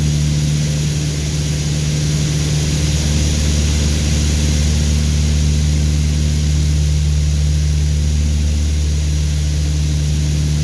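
Piper Aztec's twin piston engines and propellers droning steadily in flight, heard inside the cabin, with a steady hiss of rushing air over the low hum.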